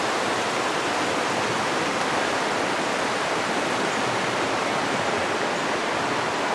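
The Michigamme River rushing through shallow rapids: a steady, even rush of fast-flowing water.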